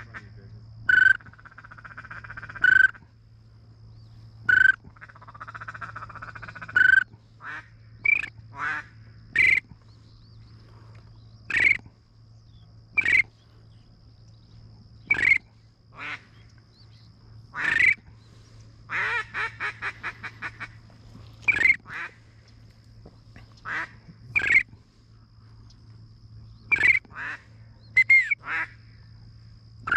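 Duck calls blown close by: loud single quacks every second or two, with fast runs of short chattering notes at the start and again about two-thirds of the way through, working a flock of ducks toward the decoys.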